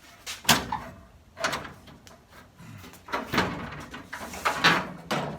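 A series of about five sharp knocks and clunks with rattling between them, from the steel hood of a Willys Jeep being handled and propped open.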